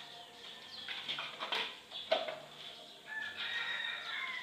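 A rooster crowing in the background, with a few sharp knocks, the loudest about two seconds in.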